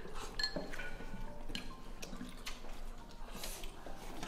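Wooden chopsticks tapping and clinking against a ceramic rice bowl during eating: a few light, scattered clinks, some with a brief ring.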